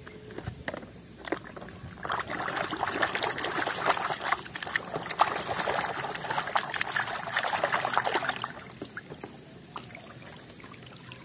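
A plastic toy being swished back and forth by hand in a basin of muddy water: sloshing and splashing with many small knocks. A few separate knocks in the first two seconds, and the splashing eases off near the end.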